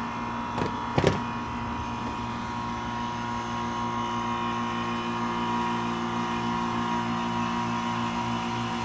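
Outdoor air-conditioner condenser unit humming steadily as it tries to start while its fan hesitates to turn, a sign of a failing capacitor. There is a short knock about a second in.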